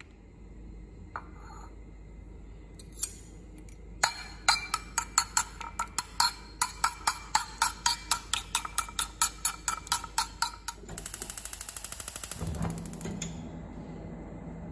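Eggs being beaten in a bowl, the utensil clinking against the bowl rapidly and rhythmically, about four or five strokes a second for roughly seven seconds. Then a gas stove's spark igniter clicks rapidly and the burner catches, burning with a steady low hum.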